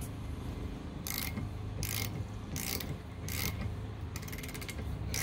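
Half-inch-drive flex-head ratchet clicking in short runs as its handle is swung back and forth to loosen a 15 mm wiper-arm nut. There are four bursts of clicks a bit under a second apart, then a quicker run of finer clicks near the end.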